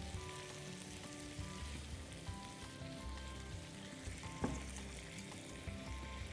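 Paneer in a tomato masala sizzling and simmering in a nonstick frying pan as a wooden spatula stirs it gently, with one sharp knock about four and a half seconds in. Soft background music with a low pulsing bass plays underneath.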